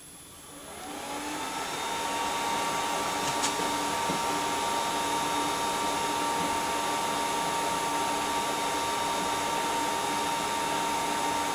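Rackmount server's cooling fans spinning up at power-on: a rising whine that levels off within about two seconds into a steady whirring hum. The server is running from a substitute power supply. A faint click about three and a half seconds in.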